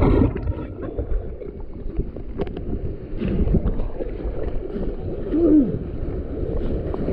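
Low, rough rush of river water mixed with wind on the microphone, with a few faint knocks and a short wavering tone about five and a half seconds in.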